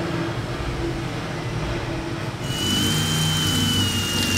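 A cordless drill driving a hole saw into a car's frame rail: after a low steady hum, the cutting starts about two and a half seconds in as a hissing grind with a thin, steady high squeal.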